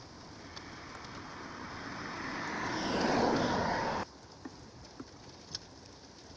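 A vehicle going by: a broad rushing noise that builds for about three seconds and then cuts off suddenly about four seconds in.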